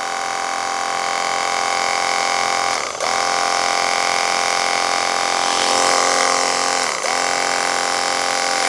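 The electric pump motor of a 21 V cordless pressure washer running with a steady whine while priming, drawing water up the suction hose before any spray comes out. About 3 and 7 seconds in its pitch sags briefly and recovers.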